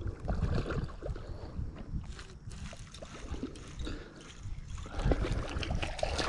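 Water gurgling and splashing at the surface, over a low rumble of wind on the microphone.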